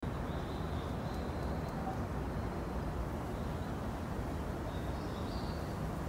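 Outdoor garden ambience: a steady low rumble, with faint high bird chirps near the start and again about five seconds in.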